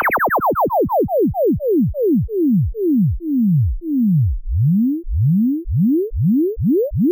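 Synthesized electronic sound effect: a rapid train of pure-tone pitch sweeps that fall and slow down to about two a second, then, a little past the middle, turn to rising sweeps that speed up again.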